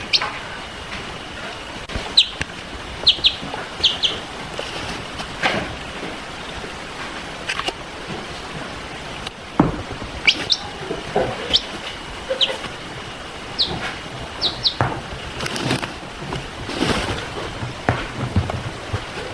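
Baby chicks peeping: short, high chirps that fall in pitch, coming singly and in quick pairs, with occasional knocks and rustling between them.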